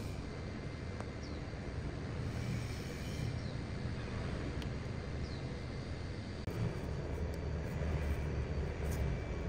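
Steady low background rumble with no clear single source, broken only by a few faint ticks.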